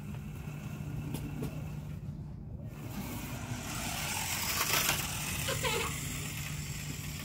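Small battery-powered toy RC car driving across concrete, its motor and wheels whirring, loudest around the middle.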